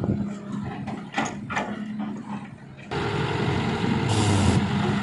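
Diesel engine of a Hitachi EX60WD wheeled excavator running under load as it dumps a bucket of soil into a tractor trolley. The engine grows louder about three seconds in, and a short rush of falling soil comes near the end.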